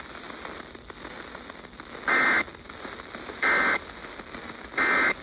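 EAS end-of-message (EOM) code: three short, identical bursts of two-tone data warble, about 1.3 s apart, over a steady radio static hiss. They mark the end of the alert message.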